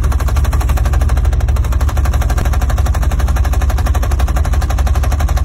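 A loud, fast, even rattle of sharp strokes, like machine-gun fire. It starts and stops abruptly.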